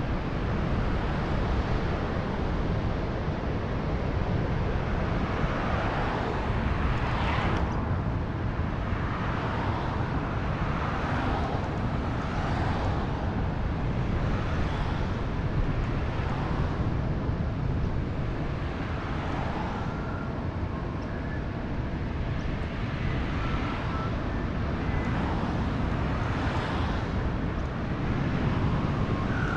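Steady wind rush and tyre rumble from an electric mountain bike ride, with several swells of passing road traffic and a few short high chirps near the end.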